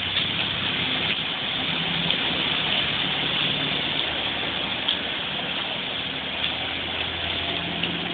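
Motor vehicle engine running with a low hum under a steady hiss.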